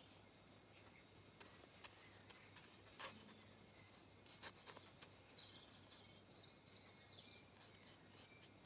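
Near silence: faint room tone, with faint bird chirps in the background and a few soft clicks.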